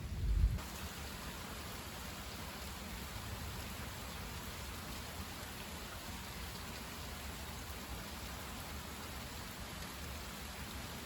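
The tail of a low thunder rumble that cuts off abruptly about half a second in, then steady rainfall in a thunderstorm.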